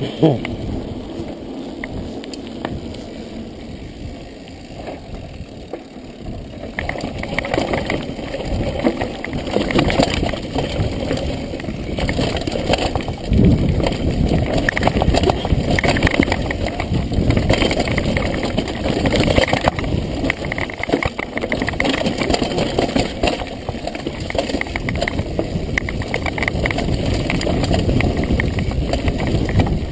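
Mountain bike ridden fast downhill on a rocky dirt trail: tyres crunching over stones and dirt, the bike and handlebar-mounted camera clattering, with wind rushing over the microphone. It grows louder and rougher about seven seconds in.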